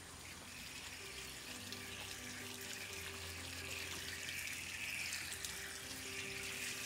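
Water running steadily from an outdoor tap and splashing over large taro leaves as they are rinsed by hand.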